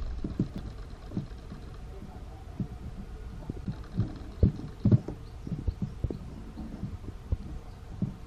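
Irregular low knocks and taps as pliers work on the brass plates of a mechanical clock movement, with a few louder knocks about four to five seconds in.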